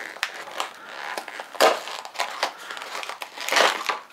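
Small cardboard blind box and its packaging being opened by hand: irregular crinkling and rustling with small clicks, in two louder bursts about a second and a half in and again near the end.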